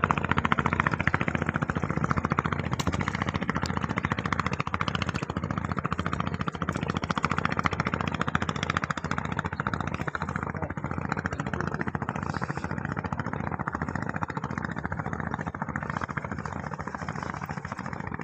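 An engine running steadily with a fast, even chugging.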